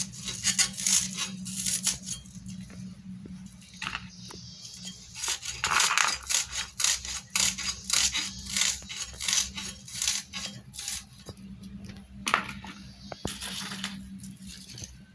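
Dry red onion skins crackling and tearing as they are peeled off with a small knife, an irregular run of short crisp crackles and clicks.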